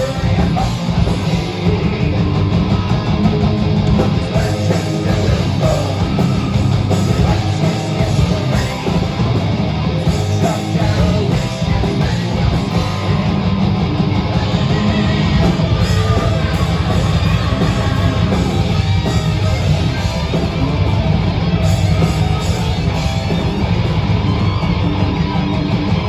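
A band playing loud rock music without a break, with guitar and some singing.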